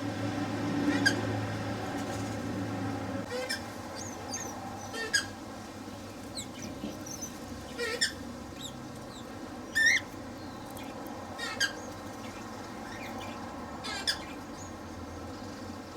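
Cockatiels calling in an aviary: scattered short, sharp squawks and chirps every second or two, with a low hum under the first few seconds.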